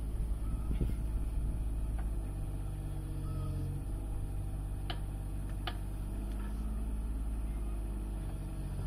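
Mini excavator engine running steadily as the machine lifts a heavy load in straps, with two sharp clicks about five seconds in.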